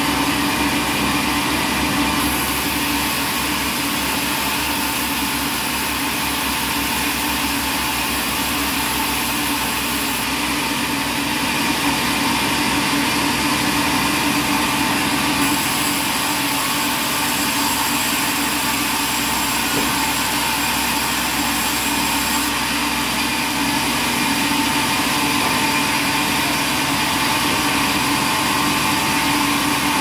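A sawmill band saw running and cutting timber as boards are fed through it: a steady machine hum and whine over a hiss, and the high part of the hiss shifts a few times.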